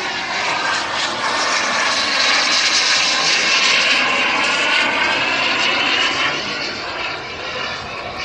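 Large radio-controlled F-86 Sabre model jet flying past, its K-210 model turbine giving a loud jet roar with a high whine. It builds to its loudest a few seconds in and eases off toward the end.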